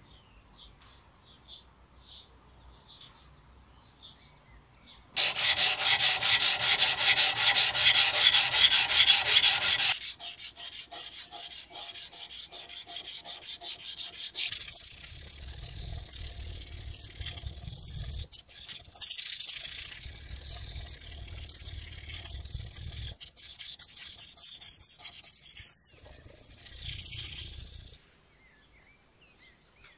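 Abrasive sanding of a steel axe head. About five seconds in comes a burst of fast, loud, even strokes lasting about five seconds. Then come slower, quieter back-and-forth rubbing strokes with a sanding block, which stop shortly before the end.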